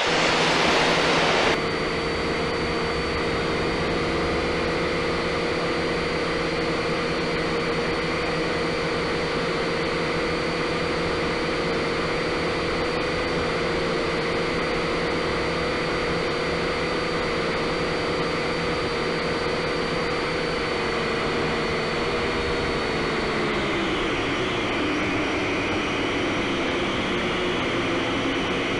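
A small camera drone's electric motors and propellers humming steadily, heard through the drone's own microphone. About 23 seconds in, the hum glides down to a lower pitch. The clip opens with about a second and a half of rushing noise from a freight train crossing a steel bridge, then cuts off abruptly.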